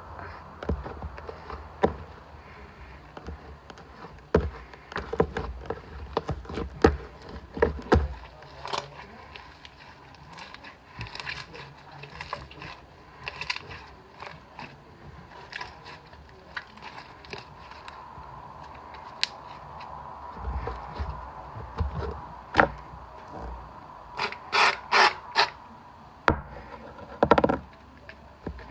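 Hands mixing and working slime made with shaving foam, with irregular clicks, taps and rubbing against the container, some in quick clusters.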